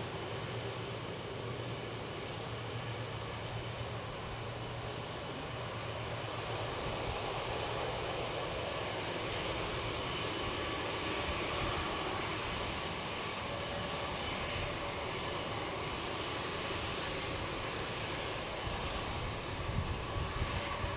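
Jet engines of a Qantas Boeing 747 running steadily at low thrust as the aircraft taxis, a continuous rush of engine noise that swells a little midway. A few low bumps near the end.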